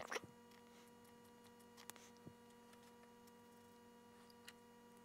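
Near silence: a faint steady electrical hum, with a few faint small clicks from handling the model locomotive chassis, the strongest right at the start.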